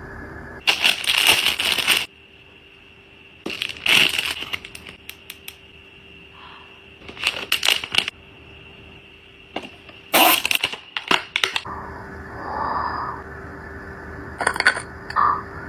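Clear plastic wrapping crinkled and peeled off by hand, in about five bursts of crackling a few seconds apart, with small clicks in between.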